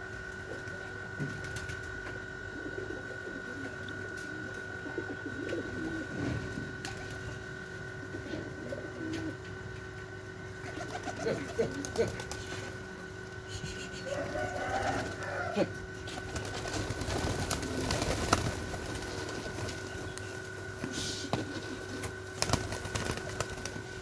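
A flock of domestic pigeons cooing while they feed, with scattered sharp clicks and wing flaps that grow busier in the second half. A steady high-pitched tone hums in the background.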